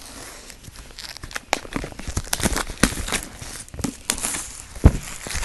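Crinkling and rustling of iPad packaging being opened and unwrapped, with many small clicks and taps and one sharper knock near the end.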